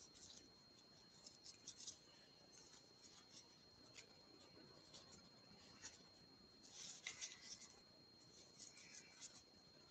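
Near silence with faint, scattered small clicks and rustles from a crochet hook working yarn, a little busier about seven seconds in. A faint steady high whine runs underneath.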